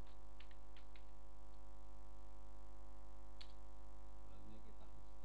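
Computer keyboard keys clicking as a short terminal command is typed: several keystrokes in the first second or so and one more about three and a half seconds in. A steady electrical hum runs underneath.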